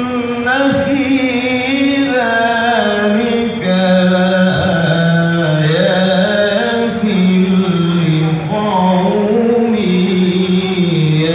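Melodic Quran recitation (tilawah) by a single qari's voice, holding long ornamented notes that slide up and down between phrases, with a short pause about three and a half seconds in.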